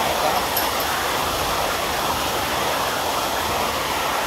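Steady, even rushing hiss of heavy rain, loud and unbroken.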